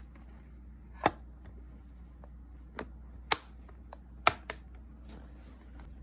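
Sharp clicks and taps of hard plastic nail supplies being handled and set down, a handful of them, the loudest about a second in, just after three seconds and just after four seconds.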